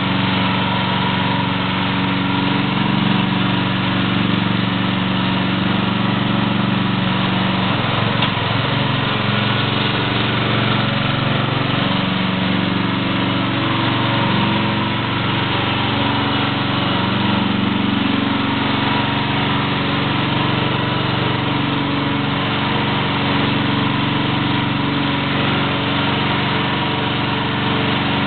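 Small engine of a walk-behind airless line-striping machine running steadily, its pitch shifting slightly about eight seconds in.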